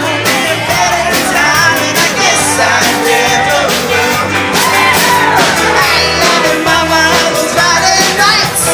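Live band playing upbeat rock and roll on electric and acoustic guitars, with sung vocals over a steady beat.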